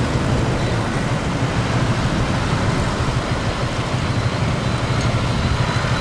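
Steady road-traffic noise with a low rumble.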